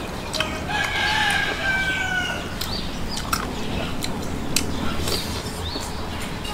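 A rooster crows once, a long call starting about a second in and lasting about a second and a half, over close-up eating sounds: chewing and mouth clicks as rice is eaten by hand. Small birds chirp briefly now and then.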